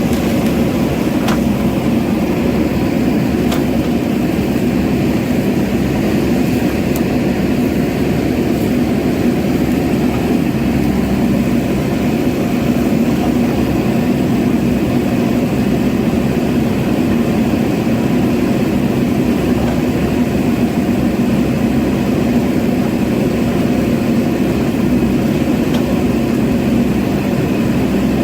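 JCB backhoe loader's diesel engine running steadily, with a few faint clicks.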